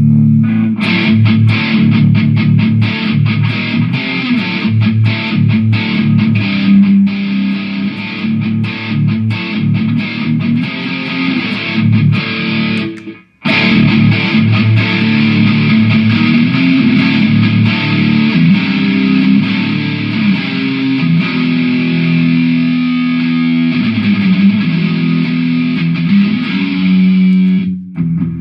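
Electric guitar played through a Mooer GE150 multi-effects processor, a test of its amp and effect sounds. The playing stops briefly about 13 seconds in, then goes on.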